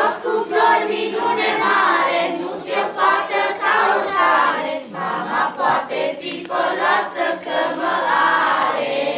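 A children's choir of about twenty boys and girls singing a song together; the singing ends near the end.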